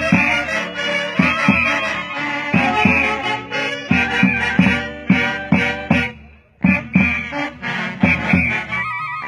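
Huancayo orquesta típica of saxophones and clarinets with a bass drum playing a Santiago tune, reed melody over a steady drum beat. The music drops out for a moment about six seconds in, then comes back.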